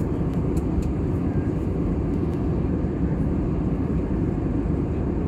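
Steady cabin noise of an Airbus A320neo in flight: an even, low roar of engines and airflow. A few light clicks from a plastic food tub being handled come in the first second and again around two seconds in.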